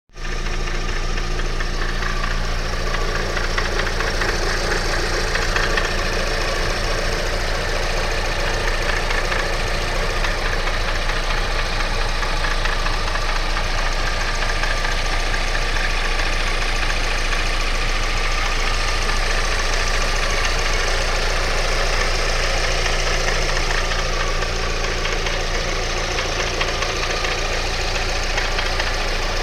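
Alfa Romeo 156 2.0 JTS four-cylinder petrol engine running at a steady speed with a fast, even knocking rattle, which the owner suspects may be a worn engine bearing.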